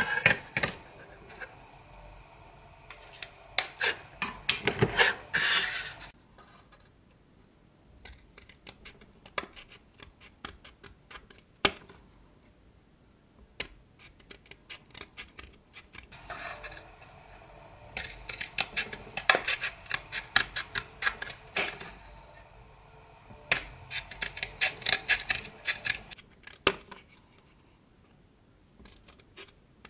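Scissors snipping through a flattened cardboard toilet-paper tube: runs of quick, crisp cuts, with quieter stretches of small ticks and handling between.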